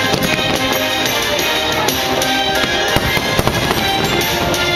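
Fireworks firing in a rapid string of pops and crackles, layered over loud show music played through loudspeakers. The pops come thickest near the start and again about three seconds in.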